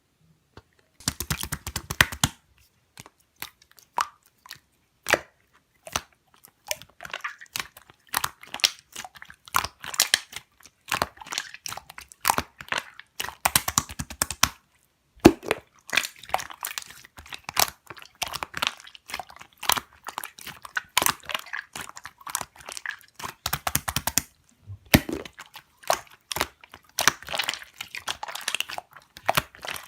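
Slime being squished and poked by hand, making dense runs of sticky crackling clicks and pops in bursts with short pauses.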